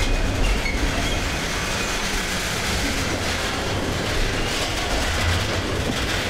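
Freight wagons and a MaK diesel shunting locomotive rolling slowly along marshalling-yard tracks, making a steady low rumble of wheels on rail with a few faint, brief squeals.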